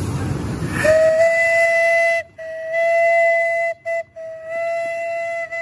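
Miniature live-steam locomotive's steam whistle blowing a series of blasts on one steady note, the first starting about a second in after a rushing noise, with short breaks between blasts.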